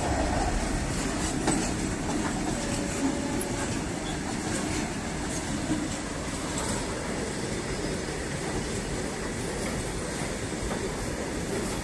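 Freight train of open-top box wagons passing at speed: a steady rumble of steel wheels on the rails, with scattered clacks as the wheels run over rail joints.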